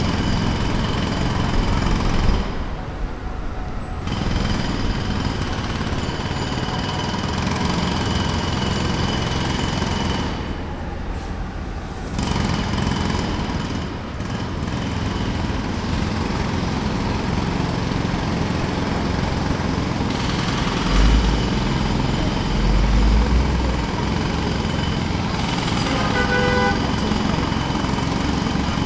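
Jackhammer hammering in rapid strokes, breaking off briefly twice, against a background of vehicle noise. A short pitched tone sounds near the end.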